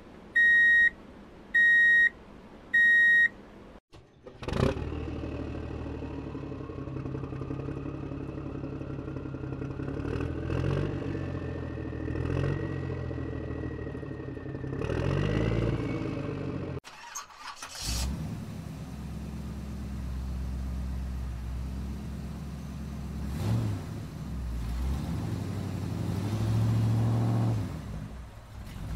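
Three short electronic beeps, then animated vehicle engine sound effects start suddenly and run on, with a whine rising slowly in pitch as if accelerating. The engine sound drops out briefly about 17 seconds in, then runs again.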